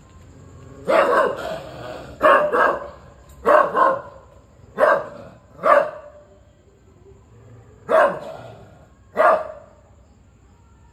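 A dog barking: about ten barks, some in quick pairs, spaced a second or more apart, the last about nine seconds in.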